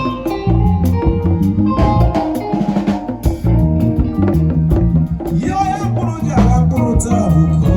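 Band music with a drum kit keeping a steady beat under guitar and bass.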